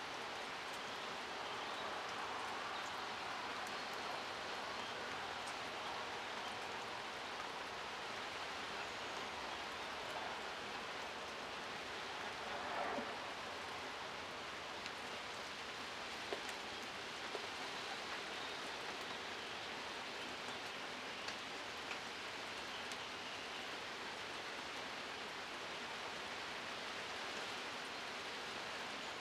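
Steady rain falling on vegetation, an even hiss with scattered faint drip ticks and a brief louder patch about thirteen seconds in.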